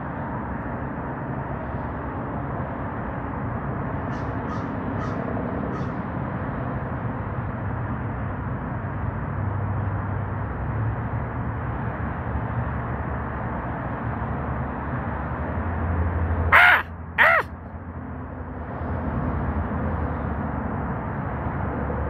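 A perched black corvid gives two harsh caws about half a second apart, over a steady low rumble of background noise.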